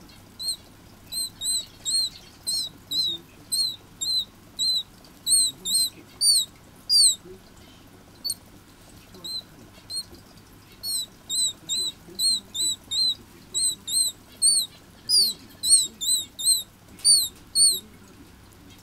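A red canary chick begging to be fed: thin, high peeps about two a second, with a few louder calls that slide downward, and a short lull in the middle.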